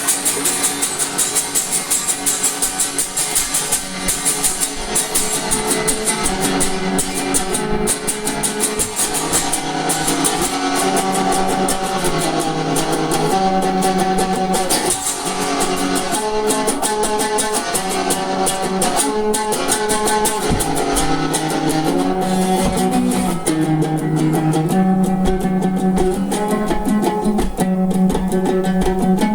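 Guitar music: an instrumental passage of chords played with steady rhythmic strumming, without singing.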